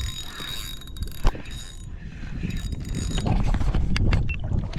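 Fishing reel being cranked as a spoon lure is retrieved, a rattling mechanical whir, with one sharp click a little over a second in.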